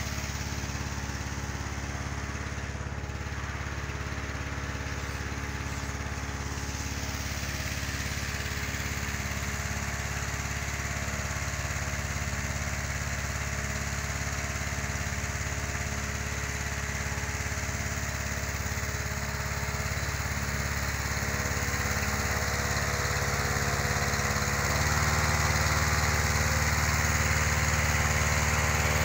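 Petrol-engine inflator fan running steadily, blowing cold air into a hot-air balloon envelope laid on the ground during cold inflation. It gets louder about 25 seconds in.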